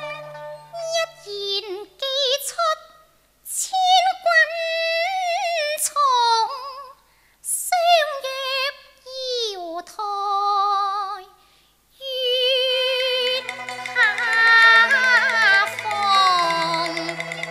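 A woman singing Cantonese opera in a high voice with heavy vibrato and sliding pitch, in phrases broken by short pauses. About twelve seconds in, the accompanying ensemble comes in fuller, with sustained low notes under the melody.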